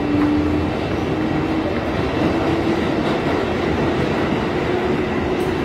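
New York City Subway 6 train running on the rails, heard from inside the car: a steady rumble of wheels and track noise with a faint steady hum.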